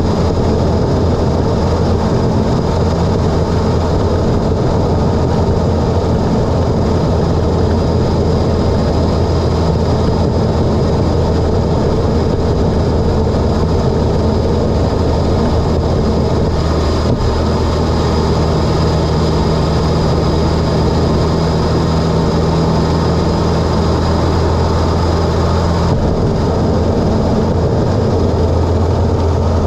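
Mitsubishi Lancer Evolution X's turbocharged 2.0-litre four-cylinder, with an aftermarket Injen intake and HKS single-exit exhaust, running at a steady pace while driving. It makes a constant low drone with a faint steady high tone above it.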